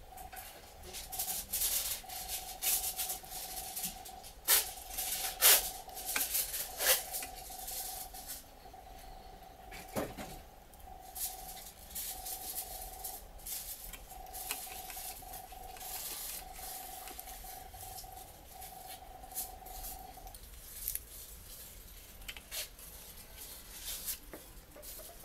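Small clicks, taps and scrapes of a precision screwdriver and metal and plastic parts being handled on a partly taken-apart Canon EOS 60D camera body, with the sharpest clicks between about four and seven seconds in and one near ten seconds. A faint steady hum underneath stops about three-quarters of the way through.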